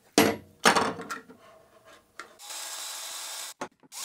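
Two sharp clacks, then a cordless drill runs steadily for about a second, spinning the threaded rod clamped in its chuck. It stops briefly and starts again near the end.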